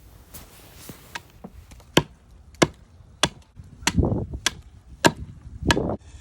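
Hand tool chopping into cherry wood: faint light strikes at first, then about seven sharp blows from about two seconds in, roughly one every 0.6 s, two of them running on into a short, rougher crunch.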